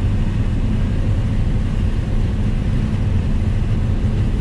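Combine harvester running steadily while harvesting corn, a constant low engine and machinery drone heard from inside the cab.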